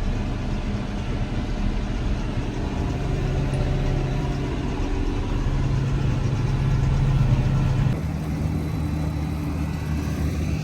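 Tractor engine running steadily, a low, even drone; the sound changes abruptly about eight seconds in.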